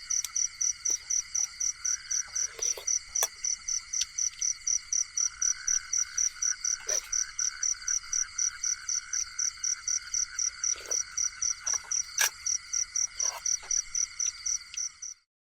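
Night chorus of insects and frogs: a high-pitched call pulsing about four or five times a second over a continuous trill. It cuts off suddenly near the end.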